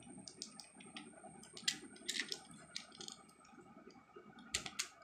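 Plastic parts of a toy truck clicking and snapping as they are folded and pushed into place by hand. The clicks are faint and scattered, with a cluster about two seconds in and another near the end.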